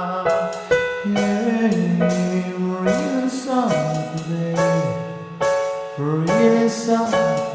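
Music: a song with a sung melody whose notes slide between pitches, over keyboard accompaniment with sharp rhythmic strikes.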